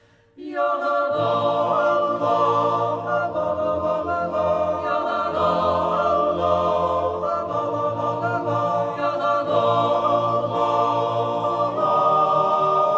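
Background music: a choir singing without accompaniment, in long held chords. It starts after a brief gap at the very beginning.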